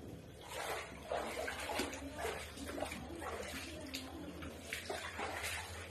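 Feet wading through shallow muddy floodwater on an indoor floor, with irregular sloshing and splashing steps, over a low steady hum.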